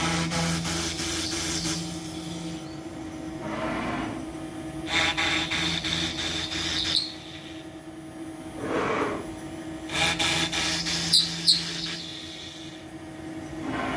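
Home-built CNC router's spindle running steadily with a small drill peck-drilling into pine, the plunges and retracts giving three spells of drilling sound about five seconds apart. Between them comes a rising-then-falling whine as the machine moves the drill to the next hole.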